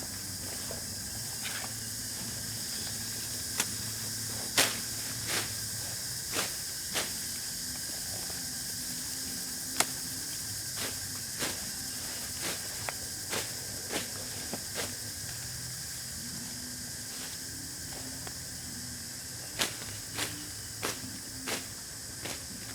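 Outdoor village ambience: a steady high-pitched hiss with a faint low hum beneath it, and scattered sharp clicks and knocks at irregular intervals.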